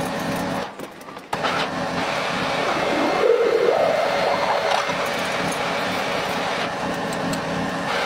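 Metal lathe running steadily while turning an aluminium disc, with a short wavering tone about three to four and a half seconds in as the cutting tool peels off curling chips. The sound dips briefly near one second in.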